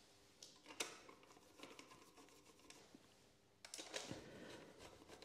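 Near silence with faint clicks and scrapes of a screwdriver refitting the screws of a motorcycle's headlight shell: one sharper click about a second in, and busier small handling noises from about three and a half seconds.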